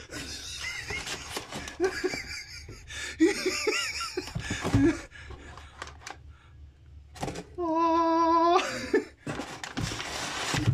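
Crumpled kraft packing paper rustling and crinkling as hands dig through a cardboard box, with short vocal sounds in the first half and a held pitched tone lasting about a second roughly three-quarters of the way through.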